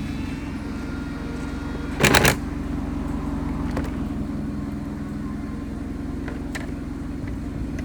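Parts and tools clattering while a car's inner door panel is put back together: a short, loud rattle of rapid clicks about two seconds in and a few faint clicks later, over a steady low hum.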